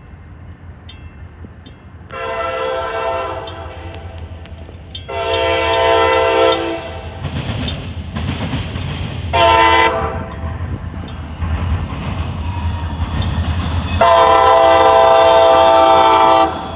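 Diesel locomotive air horn sounding the grade-crossing signal: two long blasts, a short one and a final long one. Under the horn the train rumbles steadily by with wheels clacking on the rails.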